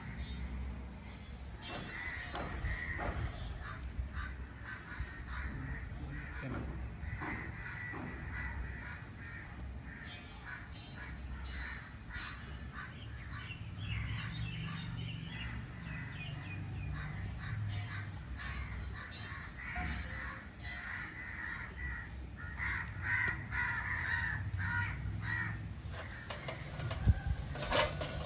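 Crows cawing repeatedly, with a low rumble underneath and a sharp knock near the end.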